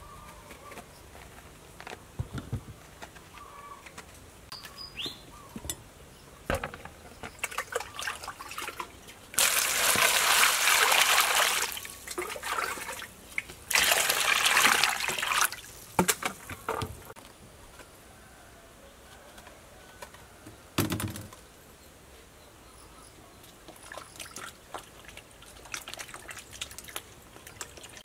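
Water poured from a bowl over hollowed-out eggplants in a metal basin to rinse them, two pours of about two seconds each. Between and after the pours come small clicks, splashes and a short thump from handling the eggplants in the water.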